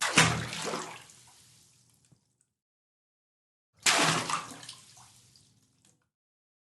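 Two medium water splashes, made by dumping a load of water into water: one right at the start and another about four seconds in, each hitting sharply and then trailing off in a fading slosh and patter.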